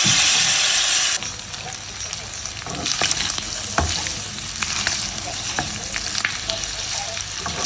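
Marinated prawns, baby corn and peppers frying in a hot pan. A loud sizzle for about the first second, then a quieter sizzle with scattered clicks of a utensil against the pan as the stir-fry is stirred.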